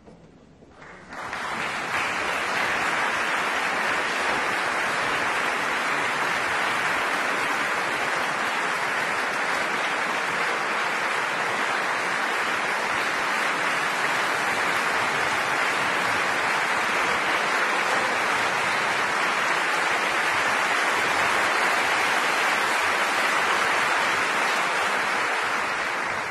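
Audience applauding, starting about a second in and holding steady, then beginning to die away at the very end.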